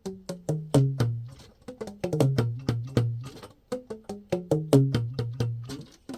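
A quick series of short, sharply struck wooden-sounding notes, each clearly pitched, stepping downward in repeated runs.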